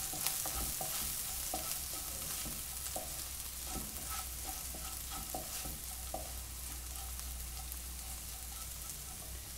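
Wooden spatula stirring chopped cluster beans and flaxseed powder in a nonstick kadai, with irregular scraping strokes over a steady frying sizzle.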